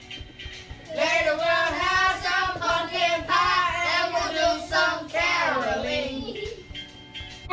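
Children singing a Christmas song together, in long held notes with vibrato, breaking off about six seconds in.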